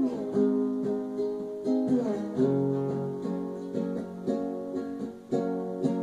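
Acoustic guitar playing alone, notes picked in a steady rhythm that ring on, with a few low bass notes near the middle.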